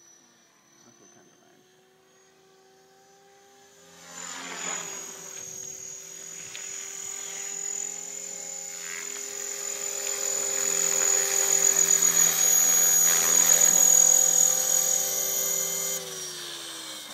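Align T-Rex 500 electric RC helicopter: its rotors and high motor whine are faint at first, then loud and steady from about four seconds in as it comes close, growing louder. Near the end the pitch falls and the sound drops as the rotor slows down.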